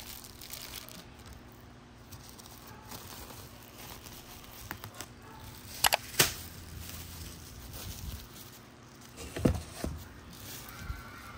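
Thin plastic wrapping crinkling and tearing as a roll of small black garbage bags is unwrapped and the bags handled, with two sharp clicks about six seconds in and a few dull knocks near the end.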